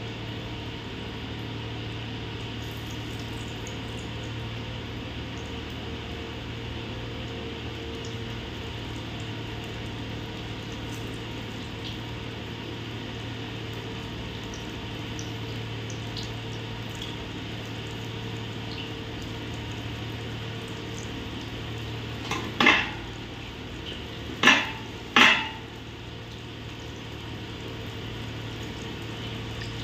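Potato and onion pakoras deep-frying in hot oil in a steel kadai, a steady sizzle. About 22 seconds in come three sharp clanks in quick succession, the loudest sounds.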